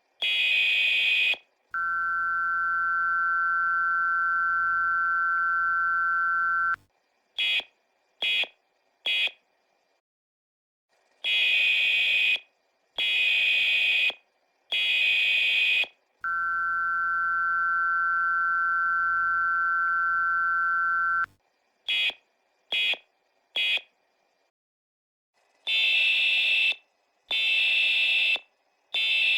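US Emergency Alert System tones, sped up and repeating. Each cycle has a group of buzzy data bursts (the SAME header), then the two-tone attention signal held steady for about five seconds, then three short end-of-message bursts. The cycle comes round about twice, and a new group of header bursts starts near the end.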